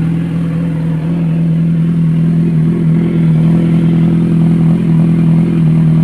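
Kawasaki Ninja 1000SX's inline-four engine idling steadily through a newly fitted SC Project screen-type muffler, still warming up after a cold start.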